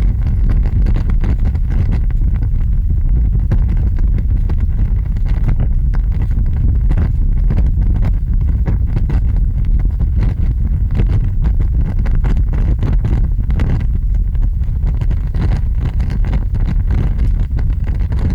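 Large fire burning, with a heavy low rumble and dense crackling and popping.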